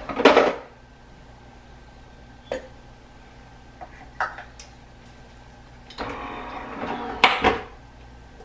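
A glass jar is set down on a Nespresso capsule machine's drip tray with a short clunk. A few sharp clicks follow as the machine's top is opened, loaded and closed, then about two seconds of louder noise near the end as it starts up to brew espresso.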